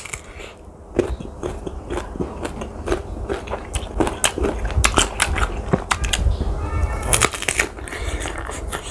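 Close-up crunching and chewing of young, crisp unripe water mango: many irregular sharp crunches as it is bitten and chewed.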